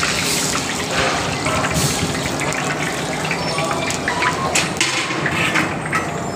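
Vegetable Manchurian balls deep-frying in a kadai of hot oil: a steady loud sizzle with scattered pops. In the second half come a few sharp clicks as the wire spider skimmer knocks against the steel colander.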